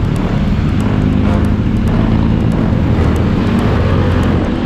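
Motorcycle engine running steadily on the move with wind noise, its note shifting slightly a couple of times.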